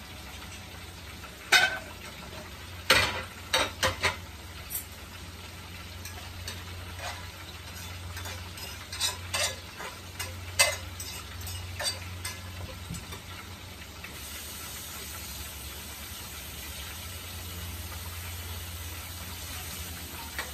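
Whole red snapper frying in a pan of oil with a steady sizzle. Sharp clacks of utensils and dishes cut through it, in a cluster about three seconds in and again around nine to twelve seconds.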